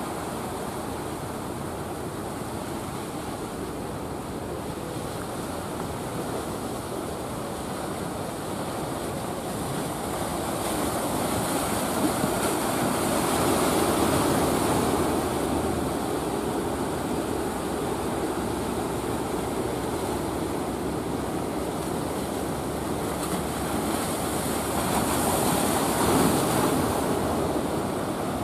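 Sea surf breaking and washing steadily, with wind buffeting the microphone; the rush swells louder twice, about halfway through and again near the end.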